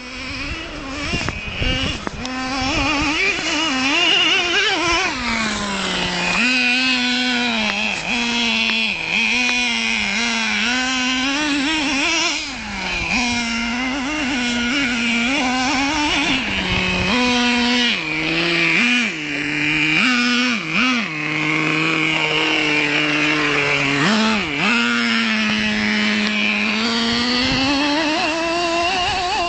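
Nitro engine of a Traxxas T-Maxx RC monster truck revving up and down over and over as it is driven, its high-pitched note rising and dipping every second or two and climbing steadily near the end.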